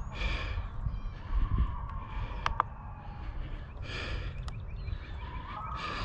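Geese honking three times, with other birds chirping and a steady low rumble on the microphone.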